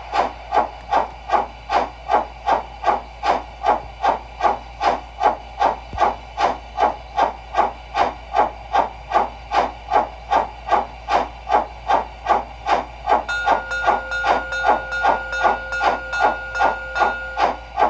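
Model steam-locomotive sound system of an LGB HSB Mallet playing a steady steam chuff, about two to three chuffs a second, through the model's speaker. A steady held tone joins for about four seconds near the end.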